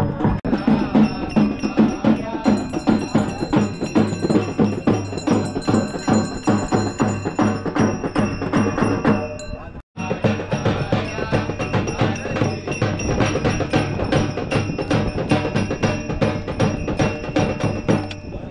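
Percussion music with a fast, steady beat of drum strikes and metallic ringing strikes. It cuts out for an instant about halfway through, then carries on.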